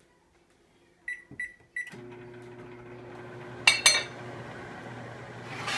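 Microwave oven keypad beeping three times as the buttons are pressed, then the microwave starting and running with a steady hum. Two sharp clicks come about two seconds after it starts.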